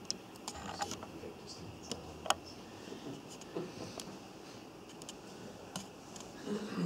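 Scattered light clicks and knocks of handling noise against quiet room tone, with a short murmur of a voice near the end.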